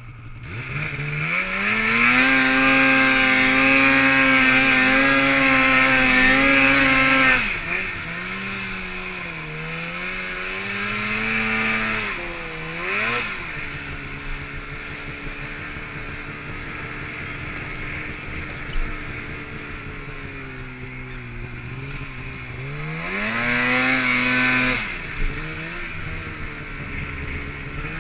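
Snowmobile engine heard close up from the rider's helmet, revving up and held at high revs for several seconds, then dropping back. A short rev blip follows, then a lower steady stretch, and it revs up again and falls back near the end.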